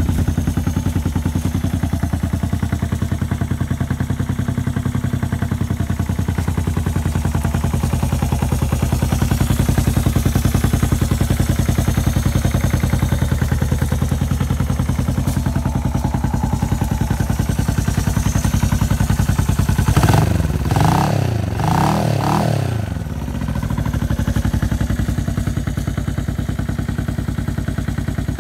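1971 Honda CB450's parallel-twin engine idling steadily, with the throttle blipped in a few quick revs about two-thirds of the way through before it settles back to idle.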